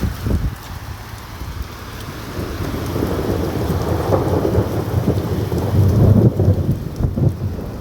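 Thunder rumbling during a storm, building over a few seconds to a deep, loud peak before easing, over steady rain.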